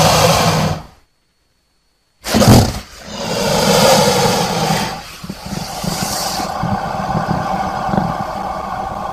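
A series of crocodile roars. One roar fades out about a second in, and after a second of silence comes a short, loud burst, followed by two long roars, the second lasting about four seconds.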